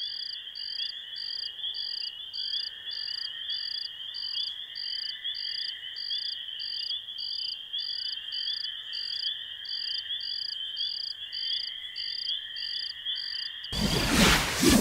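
Night-time crickets chirping: a steady high trill with a sharper chirp repeating about twice a second. Near the end a loud whoosh sweeps in.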